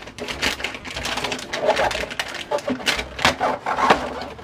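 Crinkling and rustling of plastic blind-bag packets and a cardboard gift box being handled and opened, with many short irregular crackles.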